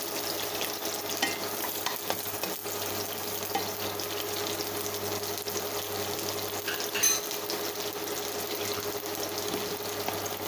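Garlic and onion pieces freshly added to hot oil in a nonstick pan, sizzling with a steady frying hiss and scattered small pops. One louder crack comes about seven seconds in.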